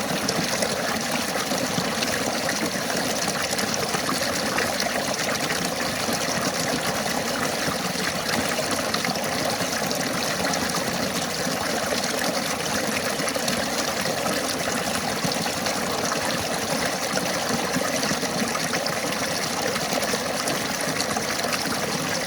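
River water running over stones, a steady rushing and splashing that holds even throughout.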